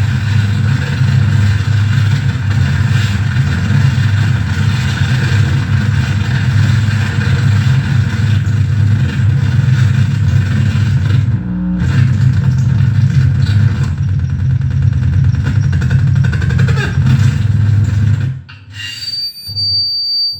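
Dense harsh-noise drone from a mixer-feedback noise rig with reel-to-reel tape and reverb, over a heavy low bass rumble. Near the end the wall of noise drops away and a thin, steady high feedback whistle sounds.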